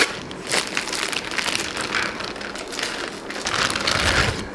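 Plastic packaging bags and wrap crinkling and rustling as an item is unwrapped by hand, in a stream of small crackles, loudest near the end.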